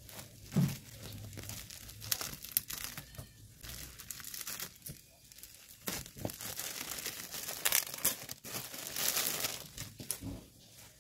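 Plastic packaging rustling and crinkling in irregular bursts as a clear plastic wrap is pulled off a soft fabric pouch, with a soft thud about half a second in.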